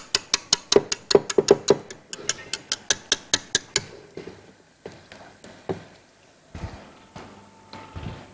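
A wire balloon whisk clicking against a stainless steel mixing bowl in quick, even strokes, about five a second, as it works a thickened cream-and-cheese mix. After about four seconds the clicking stops and only a few scattered, fainter knocks follow.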